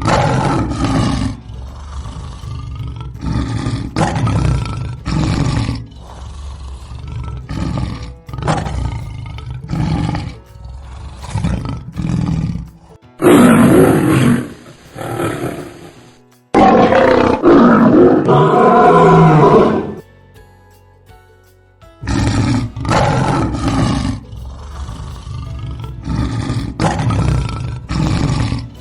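Lions roaring: runs of short, pulsing grunt-roars, with two longer, louder roars in the middle and a short lull after them.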